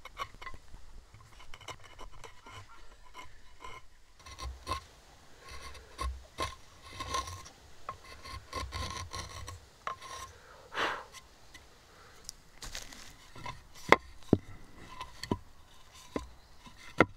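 A hand chisel paring and chamfering the end grain of a wooden through-tenon, pushed by hand in a series of short scraping, shaving strokes. A few sharp clicks come near the end.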